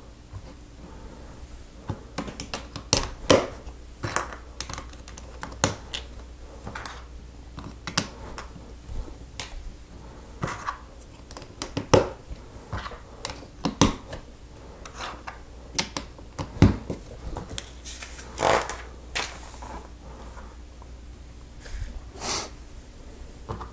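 Plastic LEGO bricks clicking and knocking irregularly as slope pieces are pressed onto a roof section and handled on a tabletop.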